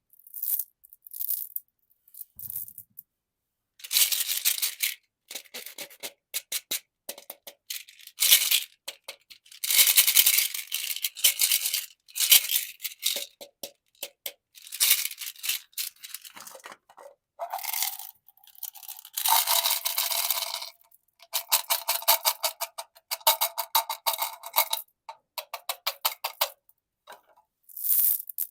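Candy packaging being handled: plastic wrappers crinkling and tearing, and loose candies rattling and clinking, in irregular bursts with short pauses between them. A stretch of fast, even rattling comes near the end.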